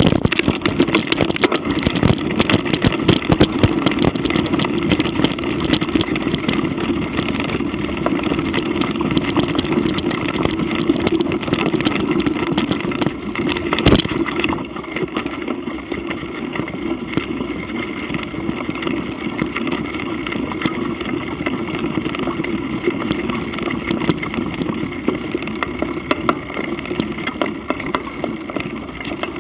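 Action-camera ride noise from a mountain bike on rough ground: a steady rumble of wind and tyres, with rattles and knocks over the rough dirt trail in the first few seconds, one sharp knock about 14 seconds in, then a smoother rumble across grass.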